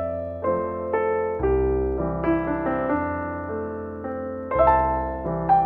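Background piano music: a slow, gentle melody of single notes over sustained low bass notes.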